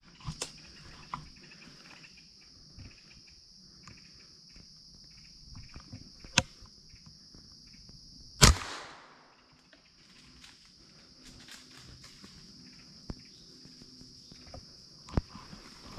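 A single gunshot about halfway through, its sound trailing off for about a second, over a steady drone of insects. A sharp click comes about two seconds before the shot.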